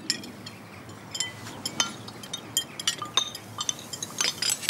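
Forks and knives clinking against plates and glasses during a meal, many short irregular clinks.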